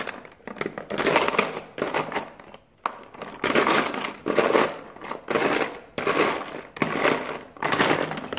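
A pen scratching across paper in a run of quick writing or scribbling strokes, about one stroke a second.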